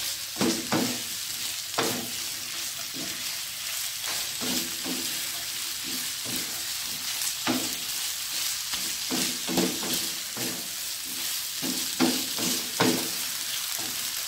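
Eggplant, scrambled egg and chopped spring onion sizzling in a wok while a wooden spatula scrapes and turns them in repeated, irregular strokes. The spring onion is being stir-fried briefly, just until it wilts.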